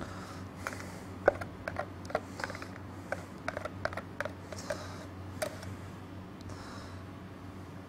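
A metal knife knocking and scraping against the inside of a plastic tub as thick chocolate mirror glaze is stirred: a run of about a dozen sharp clicks and knocks over several seconds, with short scraping swishes between them, over a steady low hum.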